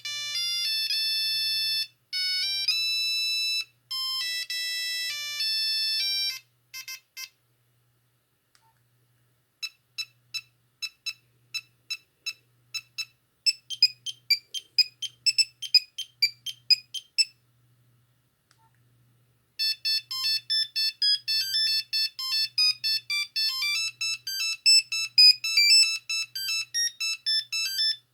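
Nokia 6310i ringtones playing one after another: bright, beeping melodies of single notes. The first tune of held notes ends about seven seconds in. After a short pause comes a tune of short, separate notes, then after another pause a faster run of quick notes near the end.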